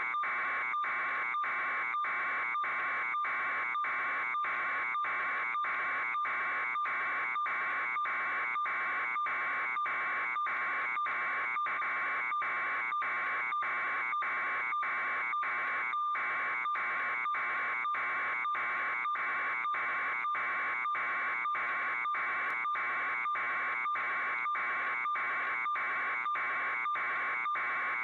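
An electronic alarm buzzing in rapid, even pulses, a little under two a second, without let-up.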